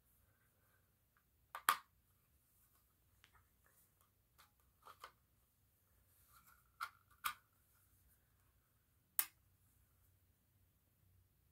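Scattered clicks and taps from a smoke alarm being handled, about ten in all. The sharpest come a little under two seconds in, around seven seconds in and about nine seconds in.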